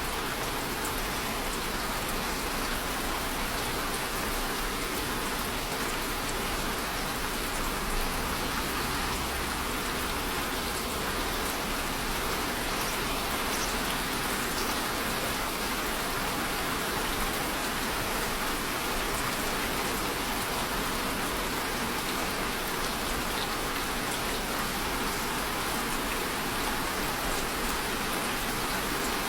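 Steady rainfall, a constant even hiss with scattered drops pattering on a surface.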